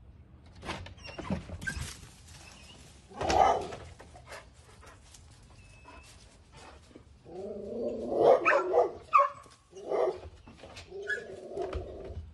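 A dog barking, with a run of loud barks in the second half, mixed with sharp knocks as it jumps up against a wooden fence.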